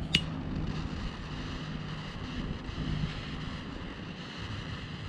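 A lighter clicks alight just after the start, then its flame hisses steadily as a cigar is lit.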